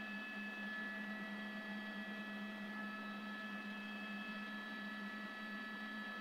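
Steady hum with several thin, high whining tones over a hiss: news helicopter cabin and engine noise heard through the crew's intercom.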